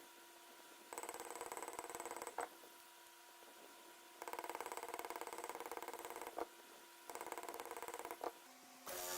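A small motor running in short bursts of a second or two, with quiet gaps between them and a sharp click as several bursts end; just before the end a louder, steadier machine sound starts.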